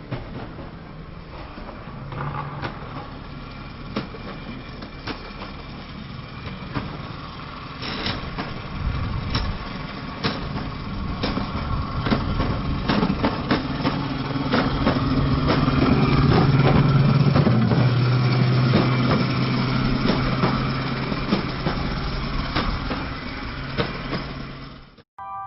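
A motor running with a steady low hum and many sharp clicks and rattles, growing louder in the middle and stopping abruptly near the end.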